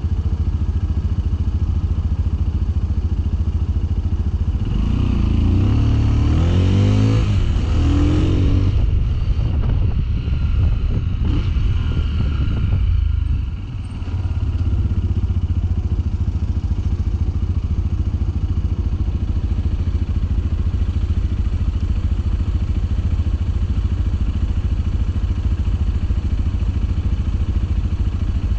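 The 2021 Sinnis Terrain 125's 125cc single-cylinder engine running on the move. It revs up in rising pitch sweeps and runs louder from about five to nine seconds in, eases off briefly around thirteen seconds, then runs steadily.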